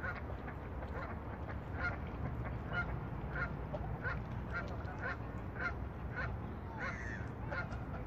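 Greylag geese honking, short calls repeated about every half second to second.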